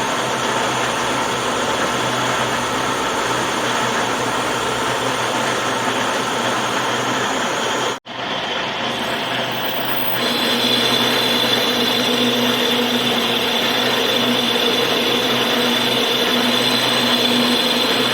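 Power tool or machine running steadily during metalworking on the flange. It cuts out for an instant about eight seconds in. A couple of seconds later it comes back louder, with a steady hum and a high whine.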